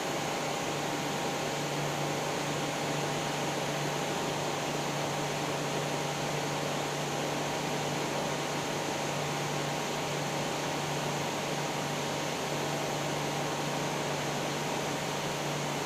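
TIG welding arc burning steadily: an even hiss over a constant low hum, with no break.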